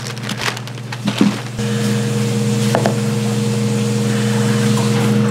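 A steady machine hum with a few light knocks or clicks. The hum drops back for about the first second and a half, then runs on steadily.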